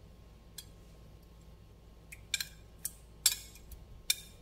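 Metal kitchen tongs clicking against a ceramic plate and against each other as they turn small oiled fish: a few scattered sharp clicks, the loudest a little past three seconds in.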